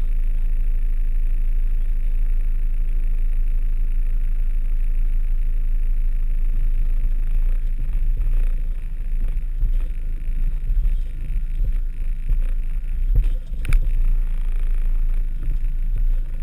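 VW T3 Syncro van's engine running at low revs, heard from inside the cabin: a steady low drone at first, then from about halfway uneven, with knocks and rattles as the van crawls over rough forest track. One sharp knock comes about three seconds before the end.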